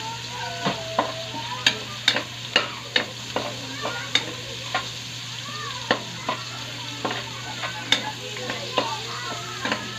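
Ginger and onion sizzling steadily in hot oil in a wok while a spatula stirs them, with sharp clinks of the spatula against the wok every half second to second. The ginger is being fried until golden brown.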